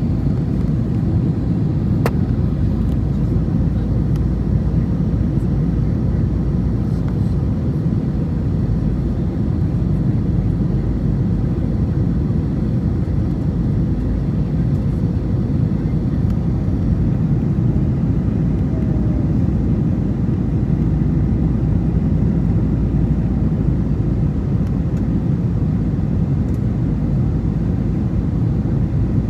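Steady cabin rumble of an Airbus A321 airliner in descent, engine and airflow noise heard from inside the cabin by the window. A faint click about two seconds in.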